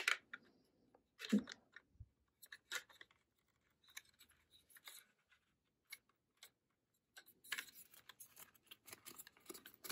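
Plastic clicks and scraping as a 2.5-inch ADATA SU760 SSD is slid and seated in a Sabrent SATA-to-USB 3.0 enclosure's plastic case: a sharp click at the start, a few scattered taps, then denser scraping over the last few seconds.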